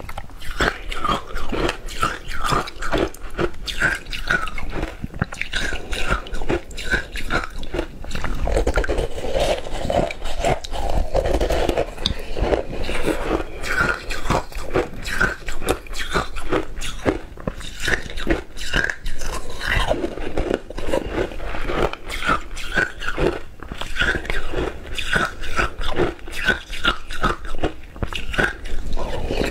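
Close-miked crunching and chewing of shaved ice, a dense run of crisp crunches from the mouth throughout.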